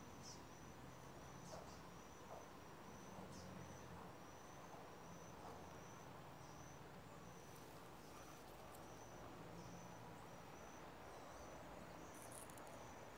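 Faint outdoor quiet with an insect chirping high and steadily, evenly spaced pulses a little under two a second; a few faint clicks.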